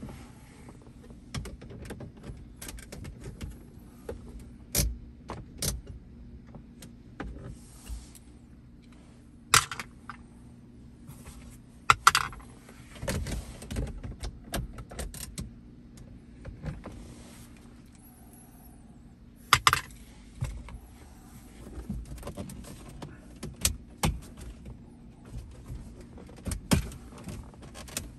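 Hands handling hard plastic and metal parts: scattered clicks, clinks and knocks with some rustling, the sharpest knocks about 10, 12 and 20 seconds in, over a faint steady low hum.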